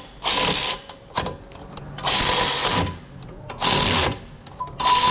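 Electric ratchet run in repeated short bursts on a Loctited wheel-bearing hub bolt, whirring in spurts without breaking the bolt free.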